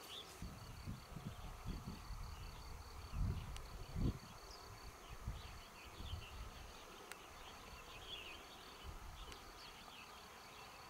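Faint rural outdoor ambience: a thin steady high insect buzz with a few faint short chirps, over low irregular rumbling that is loudest about three and four seconds in.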